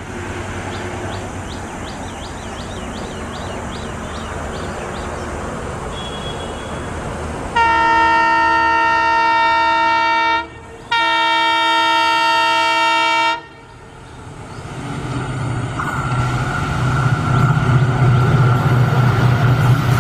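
Diesel locomotive sounding its horn in two long blasts with a brief break between, over the rumble of an approaching train. Afterwards the locomotive's engine and the train's running noise grow steadily louder as it nears.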